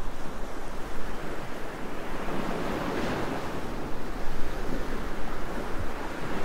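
Ocean surf washing onto a sandy beach: a steady rush of breaking waves that swells and eases.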